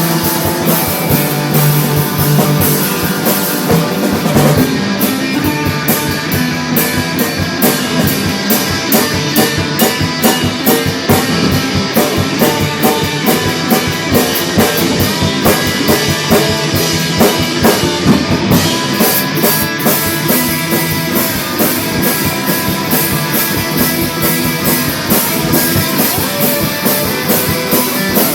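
Rock music played on drum kit and guitar, with a fast, steady drum beat; the arrangement shifts about four and a half seconds in and again past the middle.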